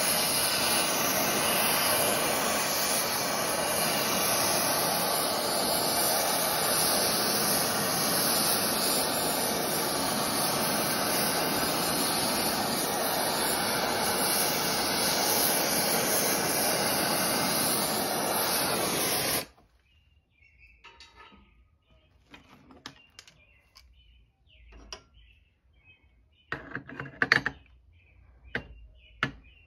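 Oxy-fuel torch flame burning steadily as it heats a steel locomotive tire ring to expand it for a shrink fit. The flame is shut off suddenly about two-thirds of the way through. After that come a few light metal clicks and taps as the hot ring is handled with pliers and set onto the cast iron driver center.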